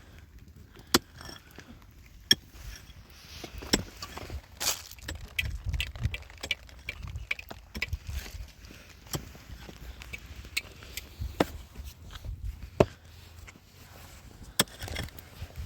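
Irregular knocks and clicks, a few sharp ones standing out, over a low rumble.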